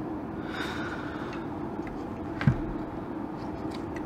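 Steady hum of bench test equipment running, the cooling fans of a bench power supply and oscilloscope, with a single knock about two and a half seconds in as the circuit board is handled.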